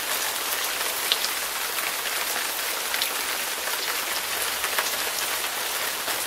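Steady rain falling, a dense even hiss with scattered individual drops ticking.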